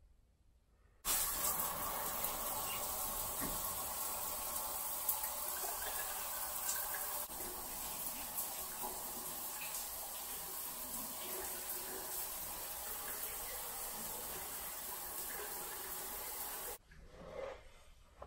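Shower running: a steady spray of water that starts abruptly about a second in and cuts off sharply near the end.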